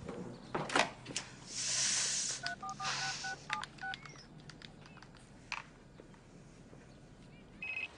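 A phone keypad being dialled: about seven quick two-tone beeps in a row, after a soft rush of hissy noise. Near the end an electronic telephone ring starts to trill.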